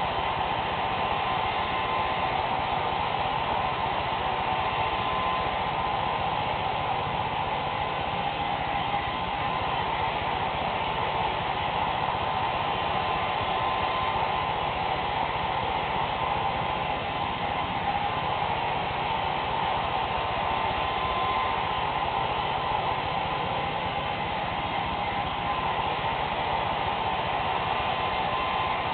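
Handheld hair dryer running steadily, blowing onto wet hair: an even rushing hiss with a constant whine in it.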